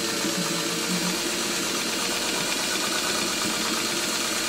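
Domestic sewing machine running steadily, stitching through the layers of a quilt during free-motion quilting of swirl designs.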